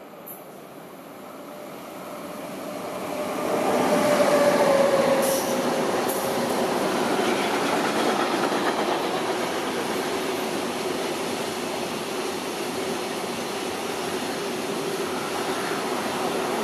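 Freight train approaching and passing at speed. The noise builds over the first few seconds and peaks as the locomotive goes by, with a short falling whine. It then settles into a steady rolling rumble of wheels on rail from a long string of intermodal wagons.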